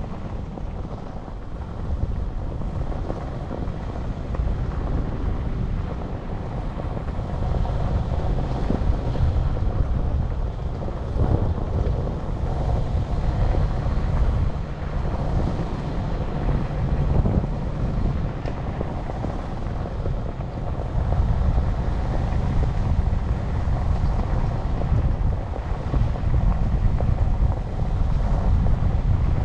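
Wind buffeting the microphone of a camera on a moving electric bike: a steady, loud, deep rumble of noise that grows louder about eight seconds in and again a little past twenty seconds.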